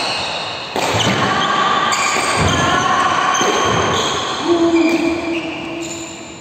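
Badminton rally sounds echoing in a sports hall: players' footfalls and thuds on the court and racket hits. Held, whistle-like tones at several shifting pitches sound through it.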